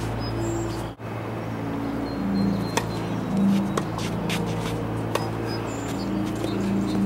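Tennis balls struck by rackets: several sharp pops about a second apart during a rally, over a steady low hum.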